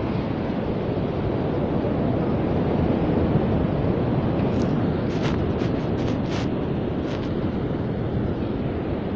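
Steady wind noise on the microphone over the wash of surf breaking on a sandy beach, with a handful of brief clicks about midway.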